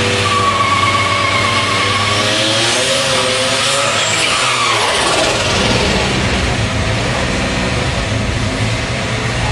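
Turbocharged Buick Regal T-Type doing a burnout: its rear tyres squeal with a wavering pitch for about the first two seconds, then spin with a loud hiss as the engine runs hard. From about five seconds in, the engine rumbles at a lower, steadier level.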